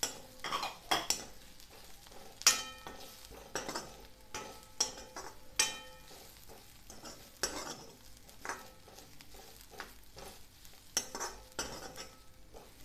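A steel spoon stirring and scraping sliced onion and grated dry coconut as they roast in a kadhai, with irregular scrapes and clinks against the pan, the sharpest about two and a half and five and a half seconds in.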